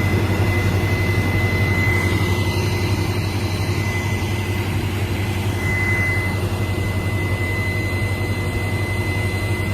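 Combine harvester running steadily at full throttle while its unloading auger empties grain into a cart alongside: a constant low hum with a thin, steady high whine over it.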